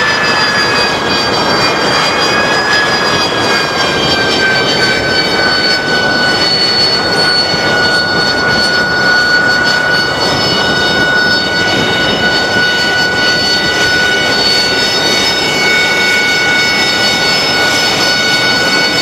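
AV-8B Harrier II's Rolls-Royce Pegasus turbofan running as the jet taxis past, a loud rushing roar with a high whine. The whine dips slightly in pitch over the first few seconds, then holds steady.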